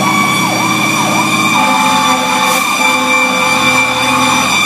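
Fire engine sirens heard from inside the cab while responding: a steady high siren tone and a second siren warbling about twice a second, over the truck's engine.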